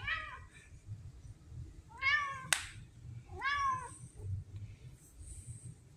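Red tabby cat meowing three times: a short meow at the start, then two longer ones about a second and a half apart, each rising and then falling in pitch. A single sharp click comes just after the second meow.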